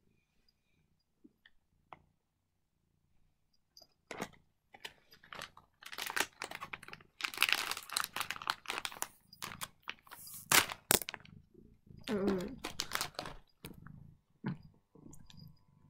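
Foil cat-treat bags crinkling and rustling in irregular bursts as a cat noses and paws at them, with a few sharp clicks, starting about four seconds in.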